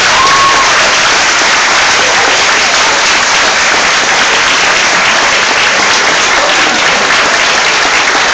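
Audience applauding steadily, loud and dense.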